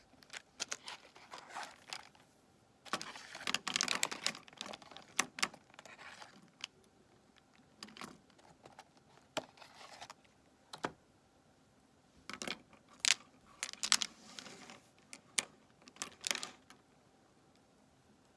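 Crayola Twistables plastic colored pencils being handled: they click and clatter against each other and onto the paper and table, with crinkling of their plastic package, in several bursts, going quiet near the end.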